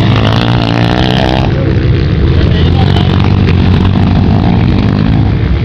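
Honda CRF230 dirt bike's single-cylinder four-stroke engine running hard on the throttle, a loud continuous rumble whose pitch wavers up and down as the rider works the throttle.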